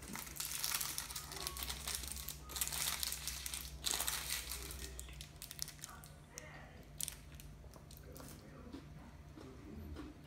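Kit Kat's plastic wrapper crinkling as it is torn open and peeled back, dense and loudest for the first four seconds, then in short, scattered crinkles.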